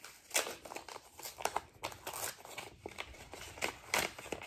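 Paper rustling and crinkling in irregular short bursts as a greeting card is handled and opened.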